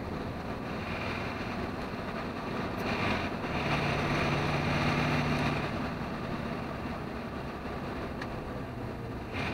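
Truck's diesel engine and tyre noise heard from inside the cab while driving, a steady drone that swells louder for a couple of seconds around the middle before settling back.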